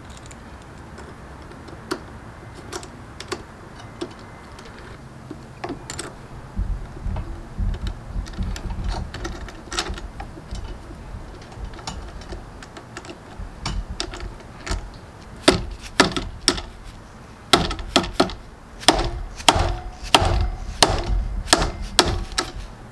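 A bar-end mirror mount being hammered into the end of a Honda Ruckus handlebar with a mallet: scattered clicks as the parts are handled, then a run of sharp knocks about two a second through the last several seconds, over a low steady rumble.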